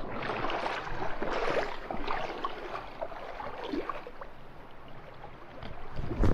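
River water splashing and rushing, with irregular small splashes, and low wind rumble on the microphone near the end.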